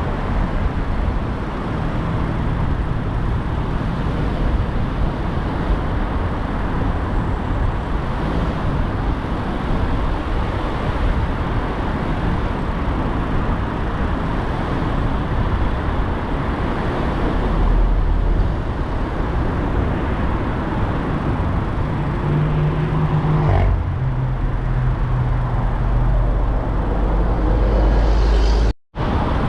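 Steady road noise of a car driving through city traffic, a rumble of tyres and engine heaviest in the low end. The sound cuts out for a moment near the end.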